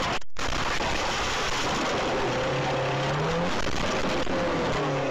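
Inside a moving car: a loud, steady rush of road and wind noise after a brief cut-out at the start, with a low hum that rises in pitch a couple of seconds in.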